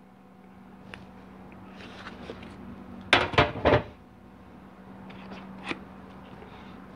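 Metallic clattering as a 4L60E transmission's aluminium valve body is set down on the transmission case: a quick cluster of clinks about three seconds in, with a few light clicks before and after. A steady low hum runs underneath.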